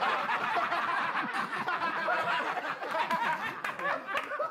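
A group of people laughing together at a joke, many voices cackling and talking over one another in a steady jumble.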